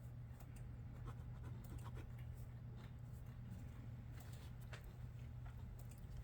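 Faint, irregular desk-work sounds: scattered small clicks and short scratching strokes, a few a second, over a steady low electrical hum.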